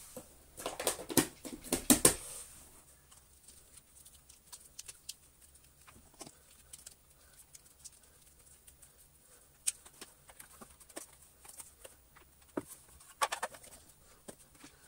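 Hard plastic parts of a Gtech AirRam cordless vacuum sweeper clicking and knocking as they are handled and fitted together: a quick run of clicks in the first two seconds, then scattered light taps and ticks.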